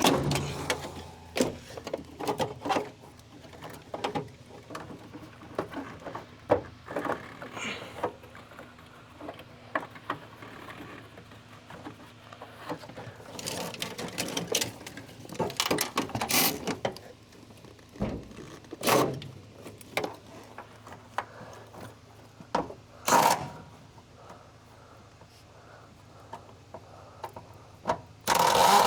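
Hand tools working on a car's interior: runs of rapid mechanical clicking with scattered sharp knocks and clatter of parts, the loudest knocks in the second half.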